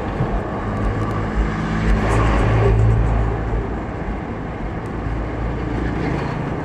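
Busy city street traffic: engines of minibuses and buses running close by over a steady road noise, with one nearby engine growing louder about two seconds in and easing off after about three.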